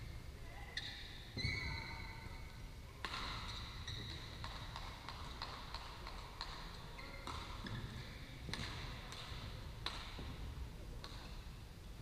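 Badminton being played across several courts in a large echoing hall: a steady patter of sharp racket-on-shuttlecock strikes and footfalls. There are a few short high shoe squeaks on the court mats in the first two seconds.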